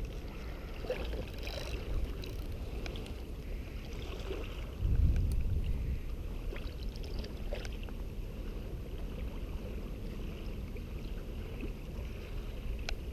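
Wind rumbling on the microphone over small waves of choppy river water lapping around the wading angler, with a stronger gust about five seconds in.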